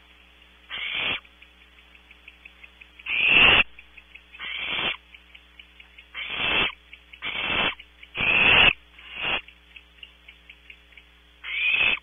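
Barn owl owlets giving eight harsh, hissing rasps of about half a second each at irregular intervals: the nestlings' snoring begging calls for food.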